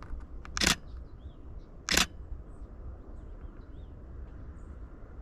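Canon Rebel T7i DSLR shutter firing twice, the second click about a second and a quarter after the first.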